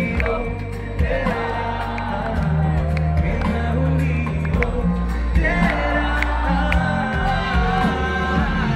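Live pop band music heard from the audience: heavy bass, drums and electric guitar, with a male lead vocal that comes back in about halfway through.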